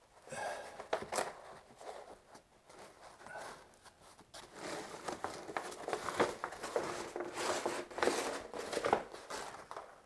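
A roll of RSS sheet waterproofing membrane rustling and crinkling as it is unrolled and pressed by hand onto fresh thinset, in irregular scratchy rustles that grow busier about halfway through.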